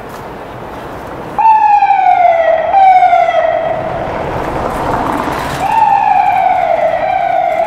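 Ambulance siren that starts suddenly about a second and a half in: a loud tone that slides down in pitch and jumps back up, over and over, roughly once every second and a half. Midway a swell of vehicle noise comes as the ambulance goes by, then the siren carries on as it moves away.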